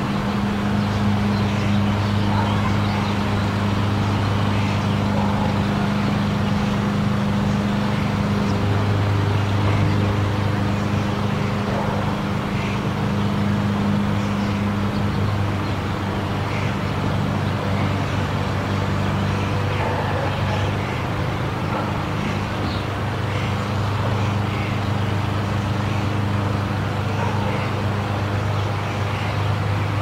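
Hwadam Forest monorail car running along its track: a steady low motor hum with a second, higher hum that grows and fades a few times, and faint light ticks above it.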